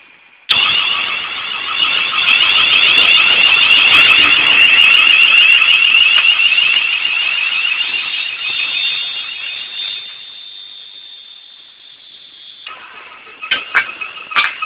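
London Midland Class 350 electric multiple unit passing close by at speed, with a loud, high-pitched warbling squeal over the rumble of the wheels. The sound fades over its last few seconds and then cuts off; a few sharp clicks follow near the end.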